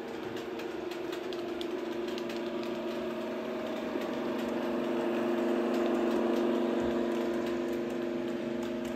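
A sound-fitted model Deltic diesel locomotive's speaker plays an engine drone, a steady hum of several tones. It grows louder toward the middle and then eases off as the locomotive passes, with a few light clicks.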